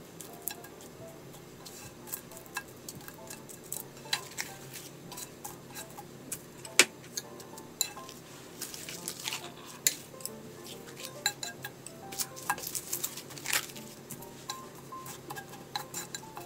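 Wooden chopsticks and a plastic slotted spatula tapping and scraping on a nonstick frying pan as sheets of laver are turned and pressed, making irregular sharp clicks, with one louder knock about seven seconds in. Soft background music underneath.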